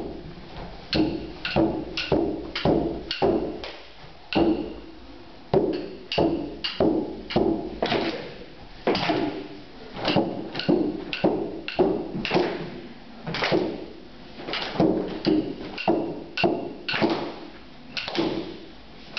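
Handheld frame drum struck in a steady beat of about two to three strokes a second, each stroke ringing briefly, with a few short pauses.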